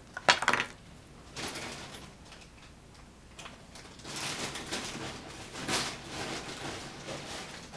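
Rummaging through and handling packaged toiletries: a sharp knock near the start, then several short bouts of rustling and handling noise.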